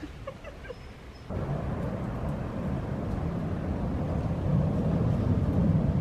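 Outdoor background noise: a few faint clicks, then a steady low rumble that starts abruptly about a second in.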